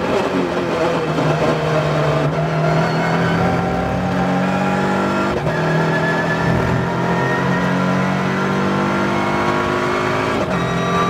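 MINI John Cooper Works race car's turbocharged four-cylinder engine heard from inside the cabin, pulling hard under acceleration with its pitch climbing steadily. The climb breaks briefly for an upshift about five seconds in and again near the end.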